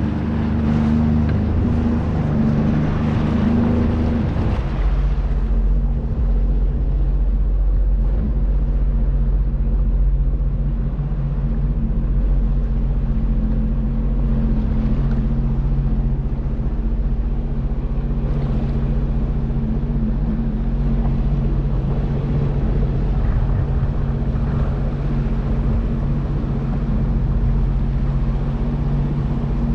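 Sea-Doo GTI SE jet ski engine running steadily while riding down the river, with water hiss. Its note shifts and the hiss falls off about four seconds in, then it runs steady.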